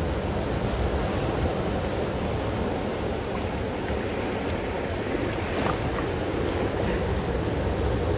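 Seawater washing and swirling against shore rocks at the waterline: a steady rushing noise of surf.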